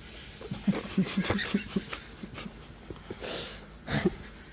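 A man laughing briefly in a quick run of short bursts, then two sharp breaths.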